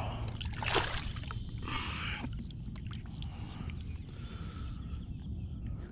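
A person's heavy breathing through the mouth, close-miked, with two loud breaths in the first two seconds, over a low steady rumble.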